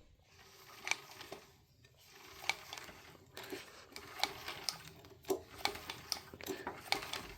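Light metallic clicks and taps of a wrench and socket turning a loosened bolt on an engine, coming irregularly and more often in the second half.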